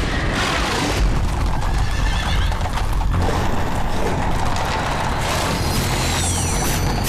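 A horse neighing over galloping hoofbeats, with music underneath.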